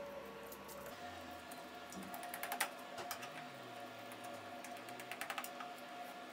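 Hands pressing and patting a stiff walnut dough flat in a greased round baking tray: soft pats and small clicks against the tray, with a quick run of clicks about two and a half seconds in and another about five seconds in.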